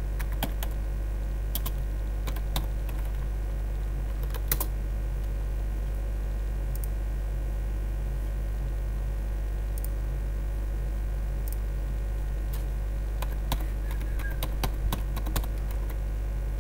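Typing on a computer keyboard: a few scattered keystrokes at first, then a quick run of typing near the end, over a steady low electrical hum.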